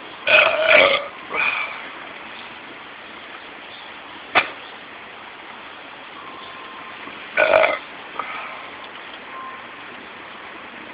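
A man burping loudly twice after chugging beer: once about half a second in, with a shorter follow-up just after, and again about seven and a half seconds in. A single sharp click comes between them.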